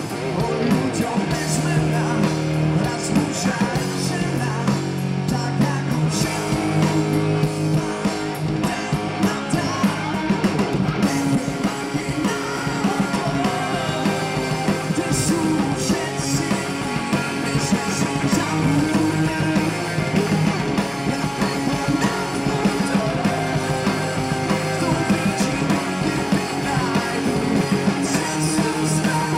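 Live rock band: a male lead voice singing over electric guitar and the full band, at a steady loud level.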